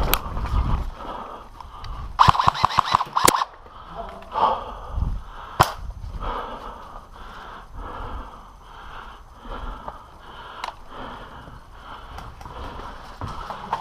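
Airsoft guns firing: a rapid burst of sharp shots about two seconds in, then single shots near six and eleven seconds.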